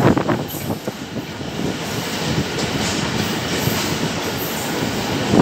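Millat Express passenger train running along the track, heard from an open coach doorway: a few knocks in the first second, then a steady rushing noise of the wheels on the rails.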